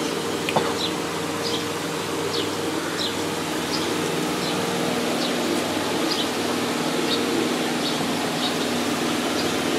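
Steady background hum and hiss, with short high falling chirps repeating about every half second, and a single light click about half a second in.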